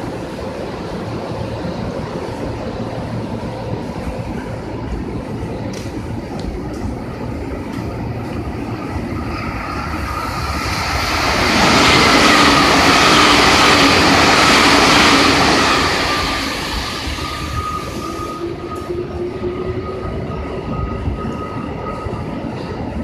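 Limited express electric train passing through the station: a steady rumble that swells to its loudest about 12 to 16 seconds in as the cars go by, then eases off, leaving a steady whine.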